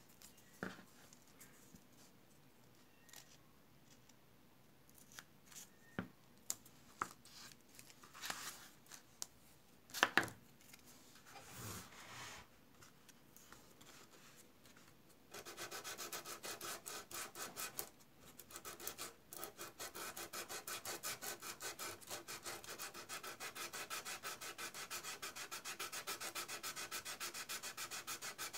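A 400-grit sanding sponge rubbed over the plastic fuselage of a scale model aircraft, smoothing cured putty along a seam. A few scattered knocks and short scrapes come first; from about halfway in it settles into rapid, even back-and-forth sanding strokes.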